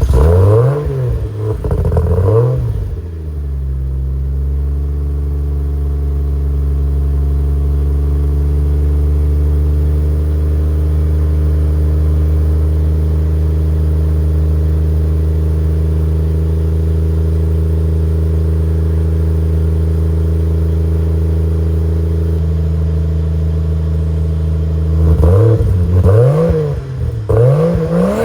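Turbocharged Toyota 2JZ inline-six in a 2001 Lexus IS300, breathing through a custom downpipe and HKS axle-back, just after a cold start. It is revved twice, settles into a steady fast idle for about twenty seconds, and near the end is blipped several times in quick succession.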